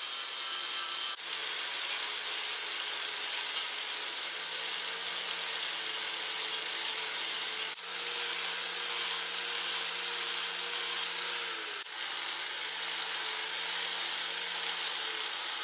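Angle grinder running with its abrasive disc against 1/8-inch steel angle iron: a steady, hissing grind over the motor's hum, dipping briefly a few times.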